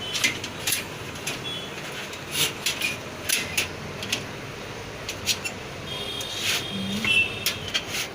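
Irregular sharp clicks and knocks of computer parts being handled and fitted back into a PC cabinet, with high thin squeaky tones coming and going, strongest near the end.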